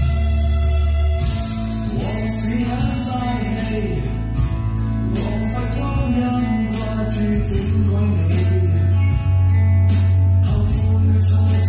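A band plays a Cantonese pop-rock song: a man sings over drums with cymbal crashes, guitar and a held bass line. The singer is also playing the drums. His voice comes in about a second in.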